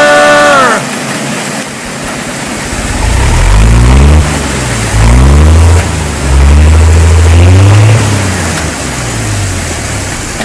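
A sung note ends just under a second in. Then an engine revs up and down about three times and settles to a lower running note.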